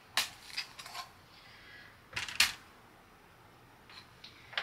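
Thin laser-cut wooden kit pieces clicking and clattering against each other and a wooden tabletop as they are handled and fitted: a few light taps at the start, the sharpest clatter about two seconds in, and more taps near the end.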